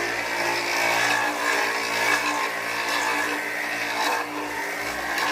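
A machine's motor running steadily, with an even hum under a loud hiss.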